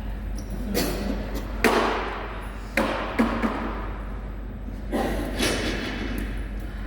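Gym equipment being set down and put away: a series of thuds and knocks, about five impacts in the first five seconds, some ringing briefly.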